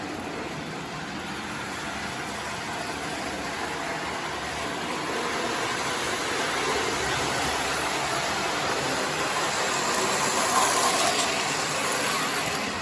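Lionel electric toy train running on its track: a steady whirring rumble of motor and wheels that grows gradually louder, loudest near the end.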